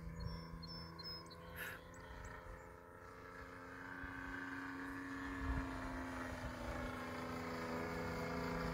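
Desert Aircraft DA-70 twin-cylinder gas engine of a 120-inch Turbo Bushmaster RC plane, fitted with a canister muffler, running steadily in flight. The drone is faint at first and grows louder from about three seconds in as the plane comes closer.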